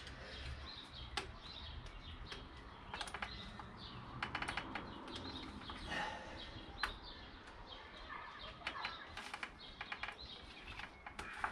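Small clicks, taps and short rattles of hands and a small screwdriver working at plastic fuel-injector connectors, prying back a locking tab to free one.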